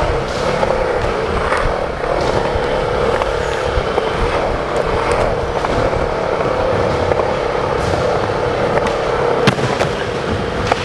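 Skateboard wheels rolling over a smooth concrete floor: a loud continuous rolling rumble with scattered clicks and knocks, and one sharper crack about nine and a half seconds in.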